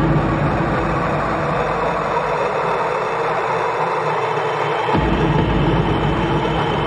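Dark dungeon synth music: a dense, rumbling synth drone. A deep bass layer drops back in sharply about five seconds in.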